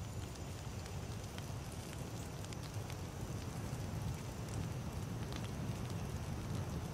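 Wood campfire burning steadily, with a continuous low rumble of flames and irregular sharp crackles and pops from the wood.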